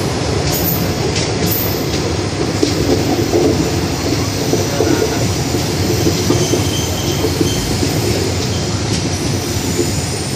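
Passenger train running along the track, heard from inside the carriage: a steady rumble and rattle of the wheels on the rails. A faint high wheel squeal comes in briefly about two thirds of the way through.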